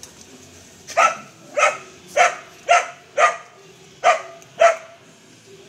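A dog barking seven times in quick succession, about two barks a second, starting about a second in, with a short pause before the last two: play barking as dogs romp together.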